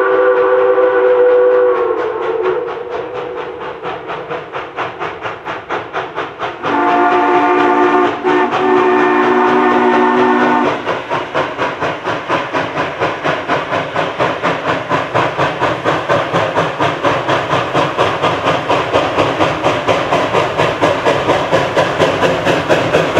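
Double-headed steam locomotives R&N 425 and CNJ 113 approaching under steam. A chime steam whistle dies away in the first two seconds and the exhaust chuffs take over. A second, lower-pitched steam whistle then sounds for about four seconds with a brief break, and after it comes rapid, steady exhaust chuffing that grows louder as the train nears.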